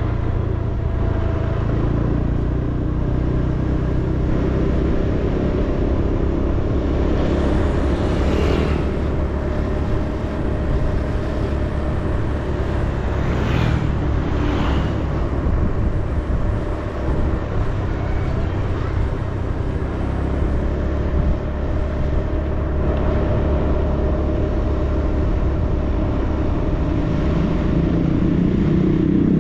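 Steady drone of the engine and road noise from a vehicle driving along a paved road. Short louder whooshes come about eight seconds in and again around fourteen seconds in, the second as an oncoming motorcycle passes.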